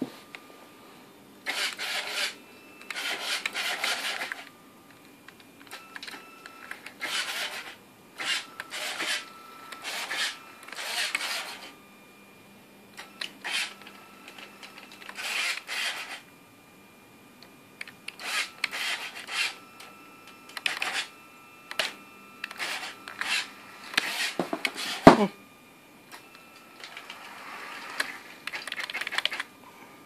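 Small electric drive motors and gearbox of a home-built robot vacuum whirring in repeated short bursts as it is driven from a computer keyboard, with one sharp click about 25 seconds in.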